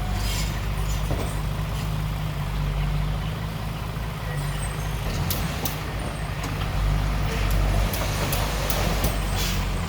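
Heavy diesel earth-moving machinery running steadily, with a run of sharp clicks in the second half.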